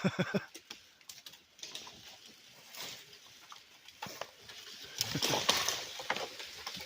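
A dead tree breaking and falling: scattered cracks and snaps of wood and branches, then a louder crash about five seconds in as it comes down.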